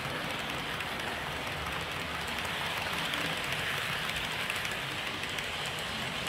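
Model railway passenger coaches rolling past on metal track: a steady rattling hiss of wheels on rails, loudest about three to four seconds in as the last coach goes by, then easing.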